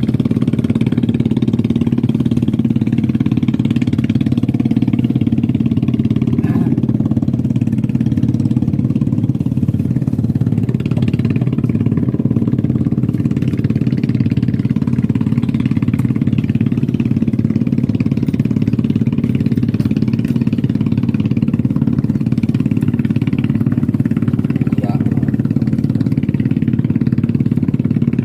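A running engine droning steadily and evenly, with no change in pitch or level.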